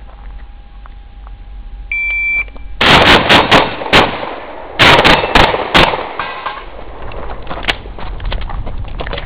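A shot timer gives one short high beep, then a shotgun fires a rapid string of about nine shots in two quick bursts over three seconds. One more shot follows a couple of seconds later.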